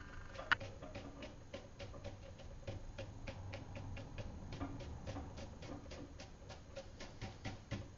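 Faint, quick light taps, about four or five a second and uneven in strength, of a watercolour brush dabbing on wet paper, with one sharper tap about half a second in.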